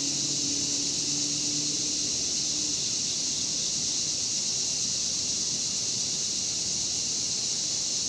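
Cicadas singing in a steady, high, unbroken chorus. Under it, a low steady hum fades out about two and a half seconds in.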